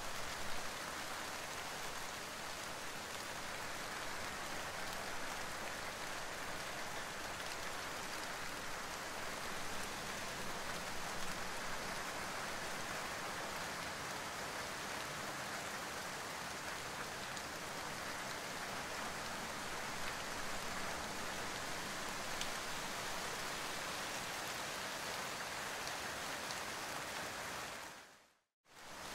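Steady rain falling on leaves. Near the end it fades out for a moment and starts again.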